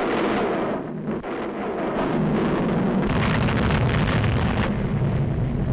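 Cartoon sound effect of a volcano erupting: a loud, continuous rumble with a brief dip about a second in.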